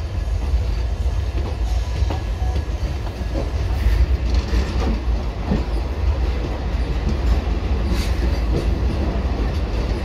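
Indian Railways electric locomotives passing at close range on the adjacent track: a heavy low rumble with scattered clanks of wheels over rail joints.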